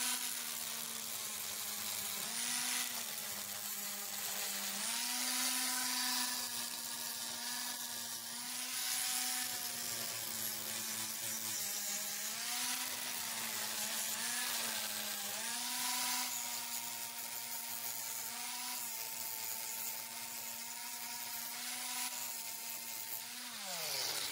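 Corded angle grinder running at high speed and grinding rust off an iron railing, its motor pitch sagging and recovering slightly as it is pressed against the metal, with a hiss of grinding. The motor winds down about a second before the end.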